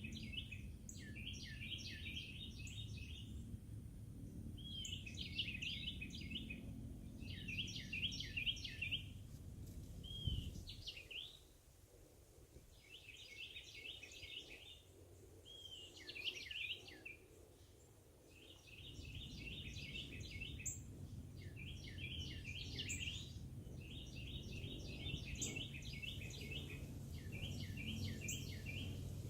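A songbird singing, repeating phrases of quick chirps and short sweeping notes, each phrase lasting a second or two with brief pauses between. A low rumble runs under it and drops away for several seconds midway.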